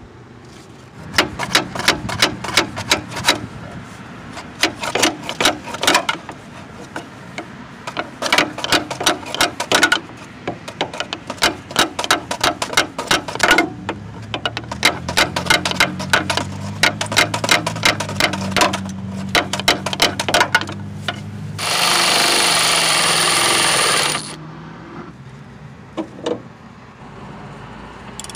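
Hand ratchet clicking in quick runs of strokes as bolts on a newly installed power steering gear box are run down. Near the end comes a loud, steady noise lasting about two seconds.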